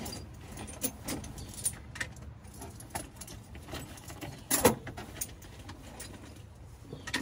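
Metal socket tools clinking and rattling as they are handled, with irregular light clicks and one louder clank about four and a half seconds in.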